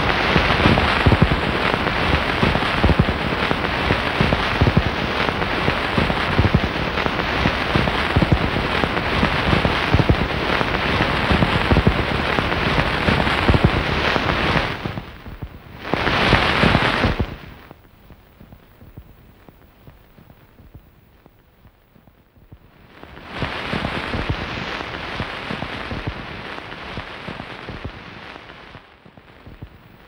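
Dense crackling, hissing noise like heavy rain. It cuts off suddenly about fifteen seconds in and returns for a brief burst a second later. After that it stays faint for several seconds, then comes back softer and drops away again near the end.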